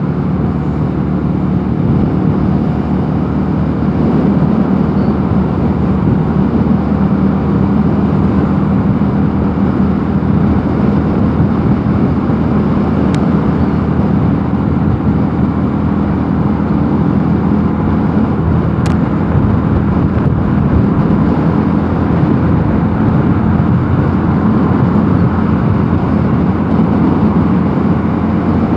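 Mondial Nevada 250 motorcycle engine running at a steady cruising speed, its pitch holding level, heard from the rider's position while riding.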